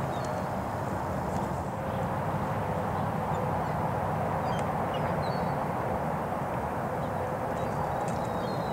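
Steady outdoor background rumble by open water, with faint, short bird calls now and then.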